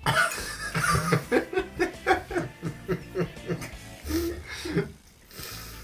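A man laughing hard in quick repeated bursts, about three or four a second, dying away near the end.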